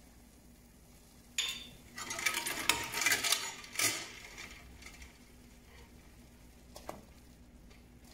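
A metal spoon stirring ice cubes in water in a stainless steel pot, clinking and rattling. It starts suddenly about a second and a half in, is loudest for about two seconds, then dies down to a few light knocks and a single click near the end.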